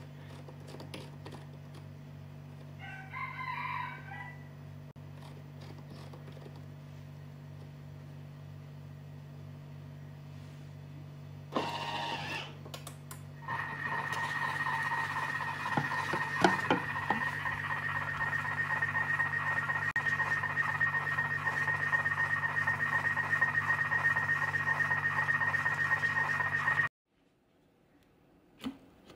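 Thermomix TM6 sautéing at 120 °C on reverse speed 1 with the lid on: a steady low motor hum. From about halfway through, a louder hiss of the frying sambal with a steady high whine joins it. The sound cuts off abruptly near the end.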